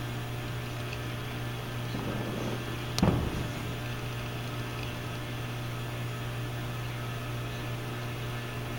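One firework shell bursting with a single sharp bang about three seconds in, which dies away over about half a second. A steady low hum runs underneath.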